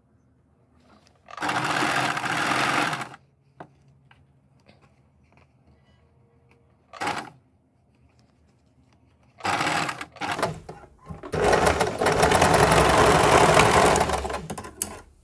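Electric domestic sewing machine stitching in separate runs: a run of about two seconds, a brief burst near the middle, then a short run and a longer run of about three and a half seconds near the end, with pauses between.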